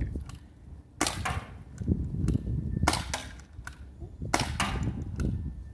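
JT ER2 CO2-powered paintball gun firing three shots, each a sharp pop with a short tail, about one and a half to two seconds apart.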